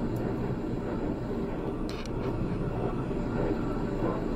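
Steady low background noise, with a few faint clicks about two seconds in.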